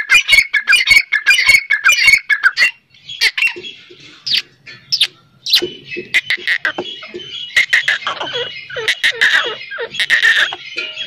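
Grey francolins calling: a fast run of short, loud notes at about four or five a second, then scattered, quieter calls after about two and a half seconds.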